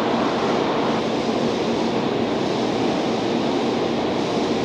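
DE10 diesel-hydraulic locomotive moving slowly on its own, its engine making a steady rushing drone with no change in level.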